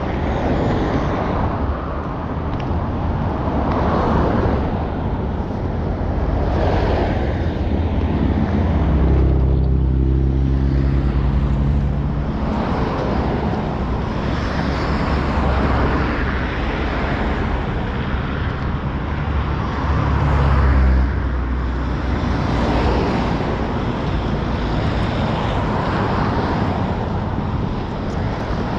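Road traffic: vehicles going by one after another, each a swell of tyre and engine noise. A heavier engine drones low as it passes about nine seconds in, and again briefly around twenty seconds in.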